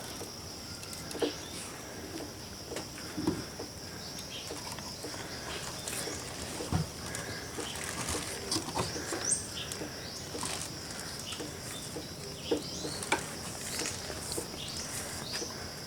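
Scattered light clicks and knocks of a small plastic water pump being handled, with a few short bird chirps and a steady high hiss in the background.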